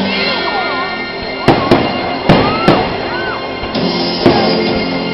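Aerial fireworks going off in five sharp bangs, the first two close together about a second and a half in, over music playing steadily throughout.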